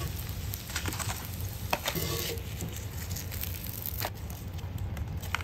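Wooden spatula scraping across a cast iron skillet as cheese-topped toast is lifted out, over a faint sizzle of frying. There are a few short, sharp scrapes and clicks, about two seconds in, near four seconds and at the end.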